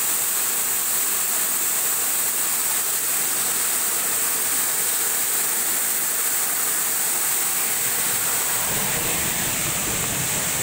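Rainwater runoff pouring from a pipe into a deep open well: a steady rush of falling water that does not let up. A low rumble joins it near the end.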